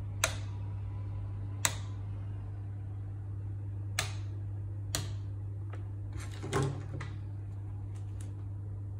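Sharp plastic clicks of a power strip's rocker switch being flipped off and on several times, then a few fainter clicks of remote-control buttons near the end, over a steady low hum. The switching is an attempt to power up a projector that is dead on arrival and does not start.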